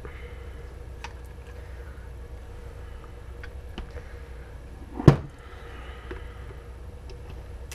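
Faint clicks and small knocks of an airsoft AEG's plastic pistol grip and motor being handled as the motor is taken out. There is one sharper knock about five seconds in, over a steady low hum.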